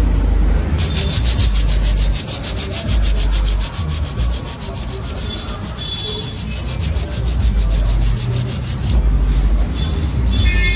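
A fast, even rasping or scraping, several strokes a second, starting about a second in and fading near the end, over a low rumble.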